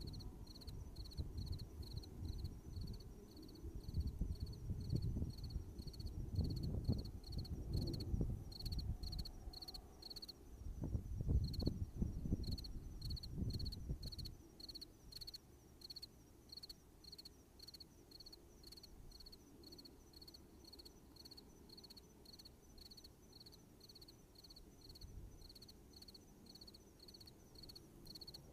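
An insect chirping steadily in short high pulses, about three a second, pausing briefly about ten seconds in. A low rumble swells and fades through the first half and dies away about fourteen seconds in.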